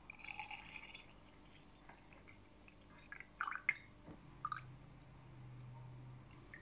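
Orange juice poured from a jug into a glass over ice cubes, a faint liquid trickle, with a few light clinks about three and a half seconds in.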